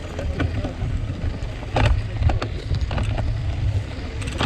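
Wind buffeting the microphone as a steady low rumble, with faint voices and a few sharp clicks, the loudest about two seconds in.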